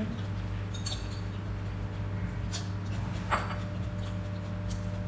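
A steady low hum with a few light clicks and taps of tableware, one louder clink a little past halfway.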